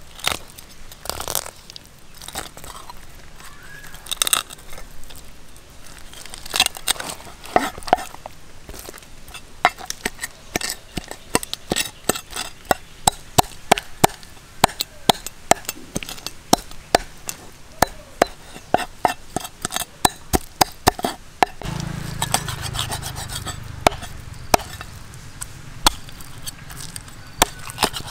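Knife blade working a whole fish on a wooden chopping block: a long run of sharp scrapes and clicks, several a second, as the blade trims the fish and cuts through it against the wood. A low steady hum comes in about three-quarters of the way through.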